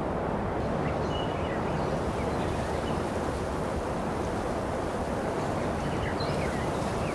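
Steady outdoor ambience: a constant wind-like rush with a few faint, short bird chirps scattered through it.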